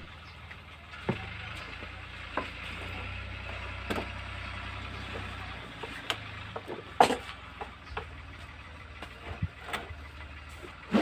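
Knocks and clatter of a plastic backpack sprayer being lifted onto the back and adjusted, the sharpest knock about seven seconds in, over a low steady engine hum that drops out briefly midway.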